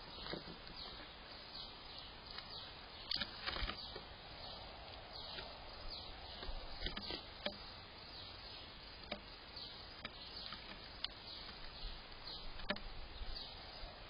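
House sparrows chirping repeatedly in short falling notes, with a few sharp taps in between.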